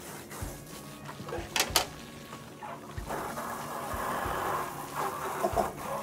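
Water from a garden hose splashing onto clear plastic refrigerator shelves as they are rinsed, with two sharp knocks of plastic about a second and a half in. The splashing gets louder and steadier from about three seconds in.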